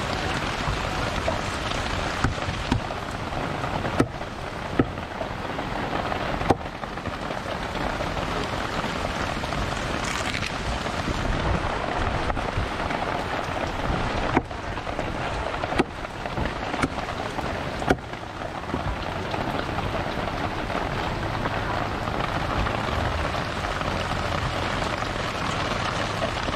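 Steady rain hiss, broken by several sharp knocks of a heavy curved knife chopping skipjack tuna on a wooden block.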